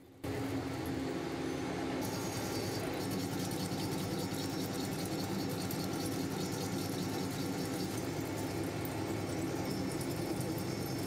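Steady machinery hum and hiss with a few constant low tones, more high hiss coming in about two seconds in.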